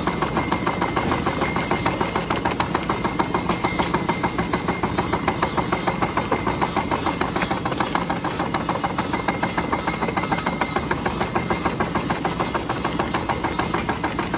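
An engine-driven machine running steadily, with a fast, even beat of several strokes a second and a faint steady whine above it.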